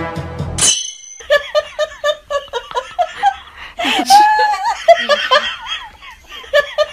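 Background music cuts off under a second in; then a person laughing in short repeated bursts, with one louder, longer laugh a little after the middle.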